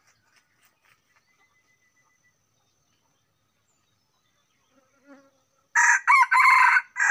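F1 wild junglefowl hybrid rooster crowing once, a short loud crow broken into a few parts, starting near the end after near-quiet seconds.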